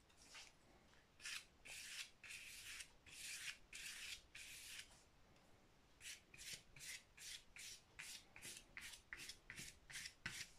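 Faint swishes of a fan brush stroking paint onto a painting surface, in a regular run of about two to three strokes a second, with a short pause midway.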